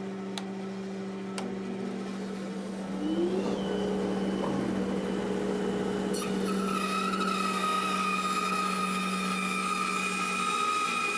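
Grizzly 2 hp bandsaw running steadily, with a rising whine about three seconds in as it gets louder, and a higher steady whine joining about six seconds in.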